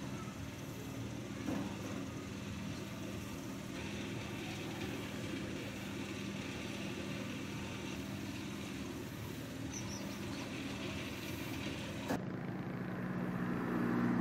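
An engine running steadily, a low hum over a broad hiss; the sound changes abruptly about twelve seconds in, with the hiss dropping away and the hum growing louder.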